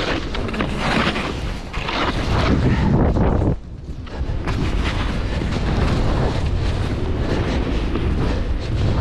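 Wind buffeting the microphone as a skier films while skiing downhill, over the hiss and scrape of skis on packed snow. The rush drops off briefly about three and a half seconds in.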